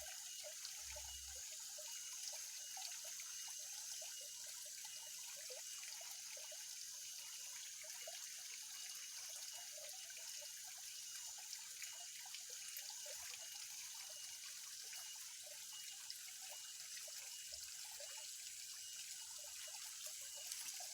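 Faint, steady trickling water with small drips and gurgles, under a thin, steady high hiss.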